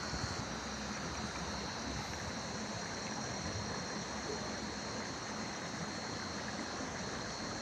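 Steady rush of flowing river water, with a constant high-pitched whine running over it.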